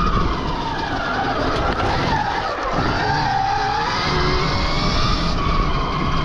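Stark Varg EX electric dirt bike's motor whining under way. The whine drops in pitch as the bike slows about two and a half seconds in, then rises again as it accelerates, over a constant rushing of wind and tyre noise.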